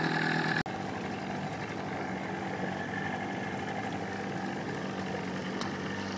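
Small boat's outboard motor running steadily under a haze of water and wind noise, with a sudden cut-out and change in the sound about half a second in.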